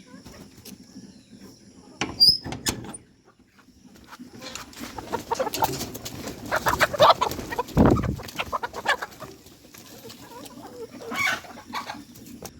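Desi chickens clucking, with rustling and wing flapping among them, and a loud thump about eight seconds in.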